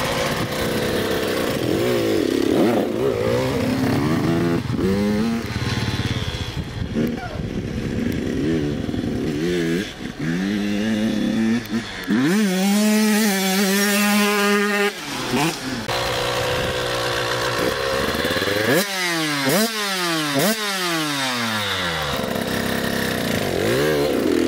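Two-stroke dirt bike engine being ridden, its revs climbing and dropping over and over as it runs through the gears, with a stretch of held high revs about halfway and quick falling drops a few seconds later.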